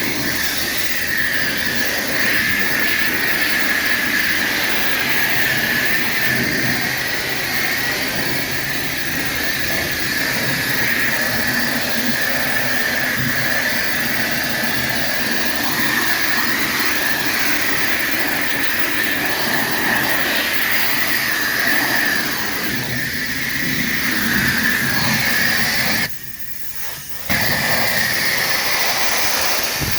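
Car-wash pressure washer spraying steadily in a high-pressure hiss, cutting out for about a second near the end before starting again.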